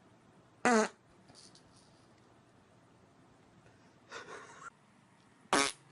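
Two short, loud farts about five seconds apart, with a softer, longer sound a little past four seconds between them.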